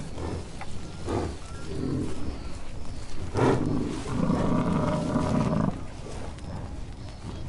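European bison grunting: several short, low grunts, then a longer grunting call about four seconds in that lasts nearly two seconds.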